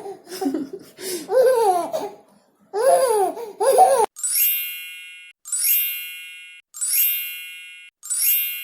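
Baby laughing in short bursts of giggles. About four seconds in, the laughter stops and a bright chime rings four times, evenly spaced about 1.3 s apart, each one fading out.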